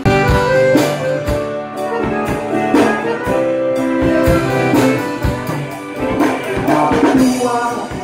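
Live band playing an instrumental break between verses: strummed acoustic guitars and accordion over a drum kit, at a steady beat.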